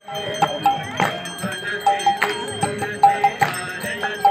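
Ritual music: irregular sharp percussion strikes about once or twice a second over steady bell ringing, with short pitched notes between the strikes.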